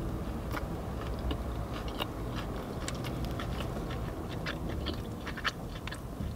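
Close-up chewing of a mouthful of fried chicken burger, with many small irregular wet mouth clicks. The breadcrumb coating is soft, with no crunch.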